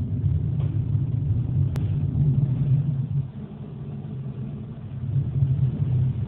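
Automatic car wash machinery running with a steady low rumble that eases off about three seconds in and builds again near the end.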